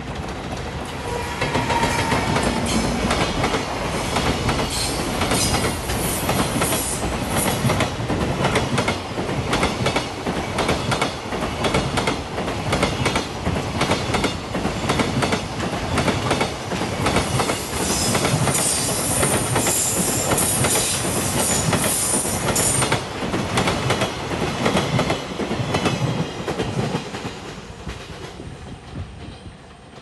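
JR Freight EF210 electric locomotive passing close, followed by a long train of container wagons whose wheels clatter rapidly over the rail joints. A high-pitched wheel squeal rises over the clatter about two thirds of the way through, and the sound fades as the last wagons go by near the end.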